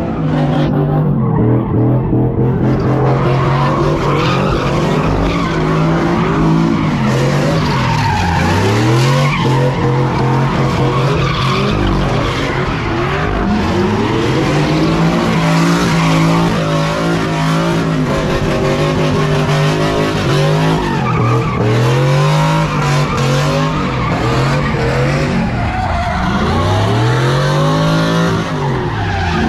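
A car spinning donuts: tyres screech continuously while the engine is held at high revs, its pitch dipping briefly and climbing back every few seconds.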